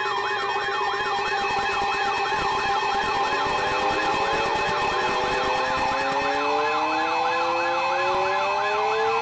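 Loud layered alert tones: steady attention tones mixed with a siren warbling about three times a second, and from about three seconds in, siren wails that slowly rise in pitch. The tones herald an incoming severe thunderstorm warning.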